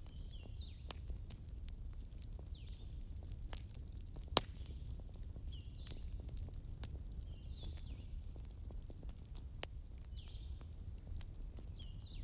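Fireplace crackling: a steady low rumble of the fire with scattered sharp pops, the loudest about four seconds in and another near ten seconds. A faint high chirp repeats every two to three seconds.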